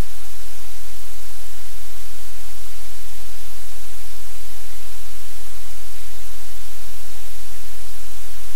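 Loud, steady static hiss with a low hum beneath it, unchanging throughout.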